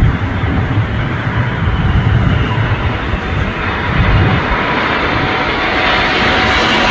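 Jet noise from an Airbus A380-861's four Engine Alliance GP7200 turbofans as it lands. It is a steady roar that grows louder and brighter near the end, with wind buffeting the microphone underneath.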